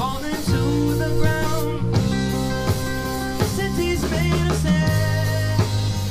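Live rock trio playing amplified: electric guitar, electric bass and drum kit, with the drums keeping a steady beat under bending guitar notes.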